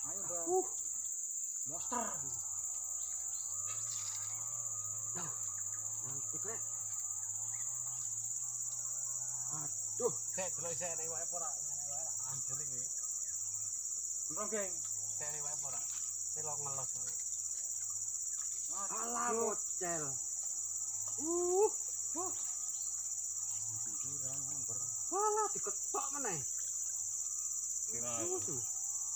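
Steady high-pitched drone of insects in the surrounding forest, with scattered short pitched calls over it and a sharp click about ten seconds in.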